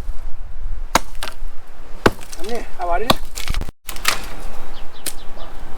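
Wood cracking and knocking: sharp strikes roughly a second apart, typical of tree branches being cut and snapped.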